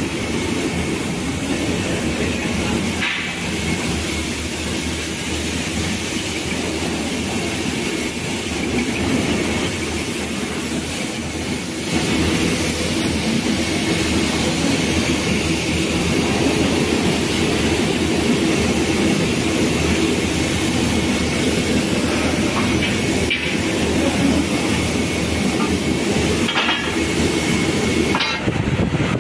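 Steady rattling, rumbling machinery noise of a truck leaf-spring painting line, with a few sharp metal clanks of the springs. It gets a little louder about twelve seconds in.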